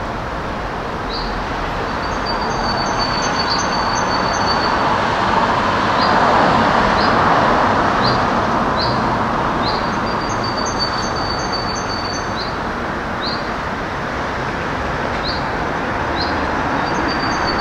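Steady street traffic noise that swells in the middle, as if a vehicle passes. Over it a small bird gives short high chirps about once a second and sings a brief high trilled phrase three times.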